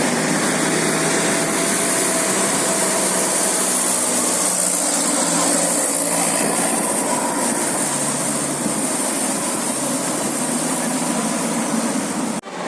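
Steady road-traffic noise: vehicle engines running with a loud even hiss and no horn. It breaks off abruptly near the end.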